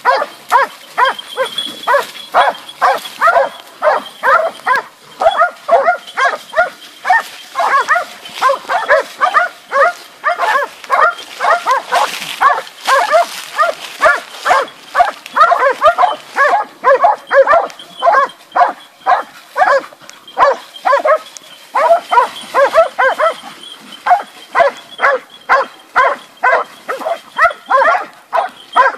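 Hunting dogs barking rapidly and without pause, several barks a second, baying a wild boar that they hold at bay.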